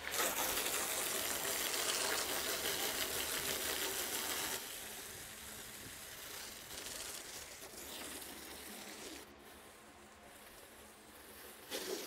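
Garden hose spray nozzle hissing as water is sprayed over freshly sawn wood slabs: loudest for the first four or so seconds, then softer, stopping about nine seconds in. A short knock near the end.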